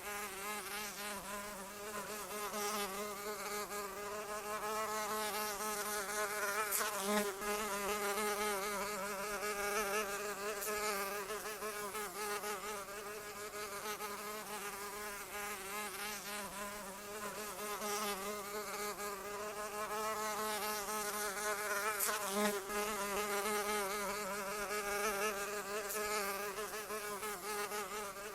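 A fly buzzing continuously, its wing drone wavering slightly in pitch and growing louder and softer by turns, with a couple of faint clicks.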